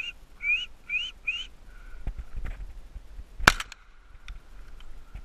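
Four short rising whistled calls in quick succession, then a single shotgun shot about three and a half seconds in, fired at a thrush passing overhead.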